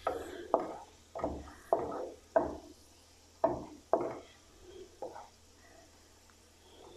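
A spatula stirring garlic and dried chillies in a frying pan of hot olive oil: a string of short scraping strokes against the pan, roughly one every half second to second, that stop about five seconds in, over a faint sizzle.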